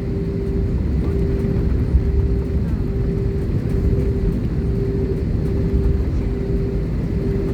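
Airliner cabin noise: a steady deep rumble with a mid-pitched hum that pulses on and off at an even rate, a little more than once a second.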